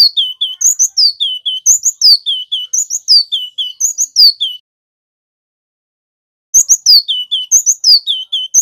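Male cinereous tit (gelatik batu) singing a repeated three-note phrase: a high, falling whistle followed by two short, lower notes, about once a second. It sings for about four and a half seconds, pauses for about two, then starts the same phrase again.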